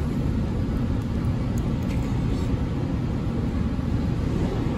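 Steady low background rumble of room noise, with a few faint clicks.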